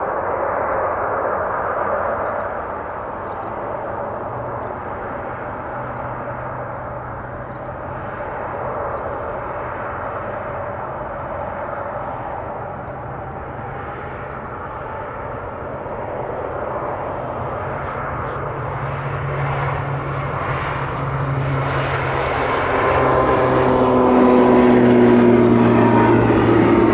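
ATR 72-600 twin-turboprop airliner at takeoff power, its engines and propellers making a steady hum that grows louder toward the end, where several tones fall in pitch as it passes.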